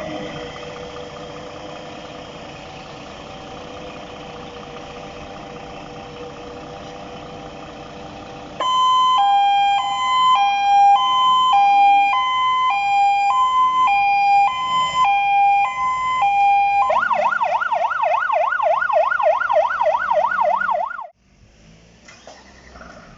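Fire engine's electronic siren being demonstrated over the truck's running engine. After several seconds of steady engine hum, a loud two-tone hi-lo siren starts suddenly and alternates about once a second. It then switches to a fast yelp sweeping up and down about four times a second and cuts off suddenly near the end.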